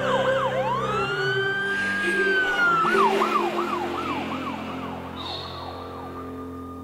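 An emergency-vehicle siren: one long rising and falling wail, then a fast yelp of about three sweeps a second that fades out, over held musical notes.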